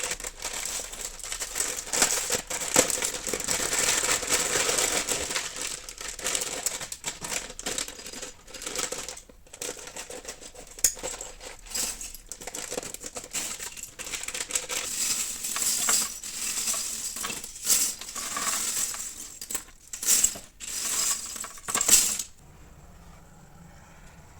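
Small plastic LOZ mini-blocks clicking and clattering as they are handled in a dense run of sharp little clicks, which stops about 22 seconds in.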